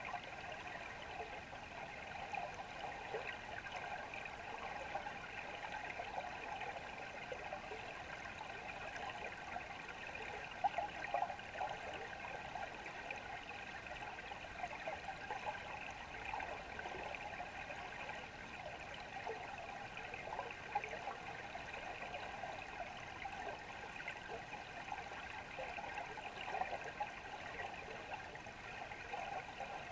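Underwater river ambience: a steady rushing of flowing water, heard below the surface. Small irregular crackles and a faint steady high hum run through it.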